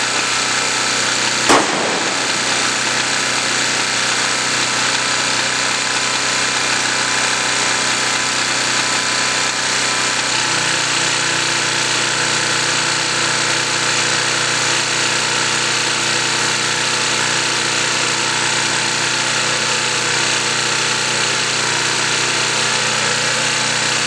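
Small portable camping generator's engine running steadily under light load. Its note shifts slightly about ten seconds in as an RV's refrigerator and battery charger are plugged in. A sharp click sounds about a second and a half in.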